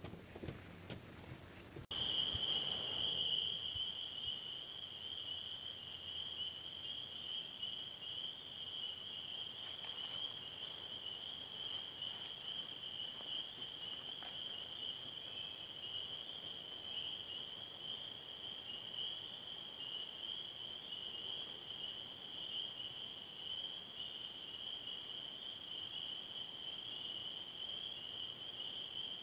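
Crickets trilling in one steady, unbroken high-pitched chorus. There is a short louder burst of noise about two seconds in.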